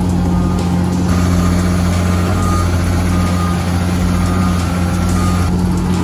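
Heavy bulldozer diesel engine running steadily as a constant low drone, with faint short high beeps coming and going.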